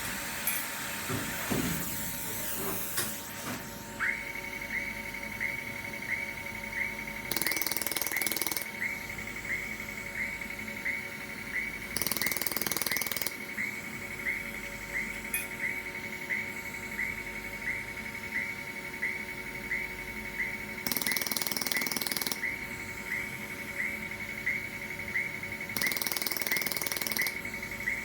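Pulsed YAG laser welder firing at a steady rate of about one and a half shots a second. Each shot is a short tick over a steady high tone, which starts about four seconds in, with a low steady hum beneath. Four bursts of hiss, each lasting a little over a second, come in between.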